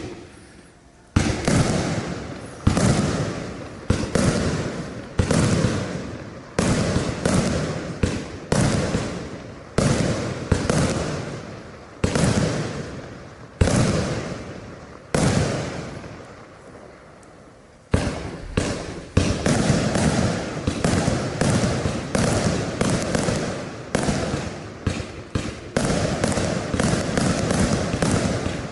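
Compound fireworks batteries firing: a series of sharp bangs, each trailing off, about one every second and a half. After a short lull, a rapid run of shots follows, with the bursts overlapping.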